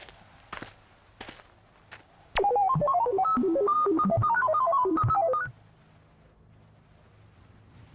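Three soft knocks about two thirds of a second apart, then a click and a short electronic tune of quick, bright notes like a phone ringtone, lasting about three seconds.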